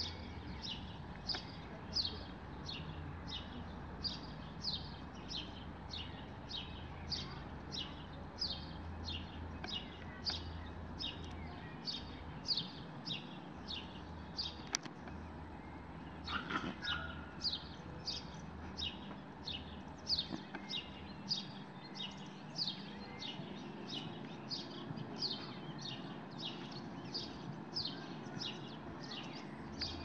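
A songbird chirping, one short high call falling in pitch repeated about twice a second, with a pause of a couple of seconds near the middle; a low steady hum underneath.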